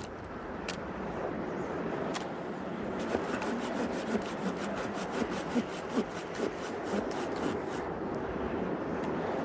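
Wood being worked with a hand tool in quick, even scraping strokes, about four or five a second, starting about three seconds in and stopping near the end, over a steady background hiss.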